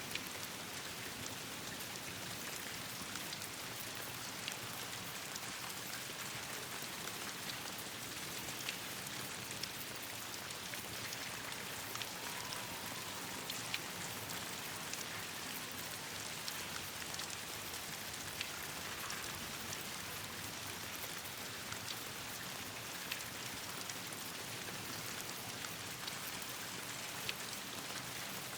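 Steady rain falling on leaves and branches, an even hiss with scattered sharp ticks throughout.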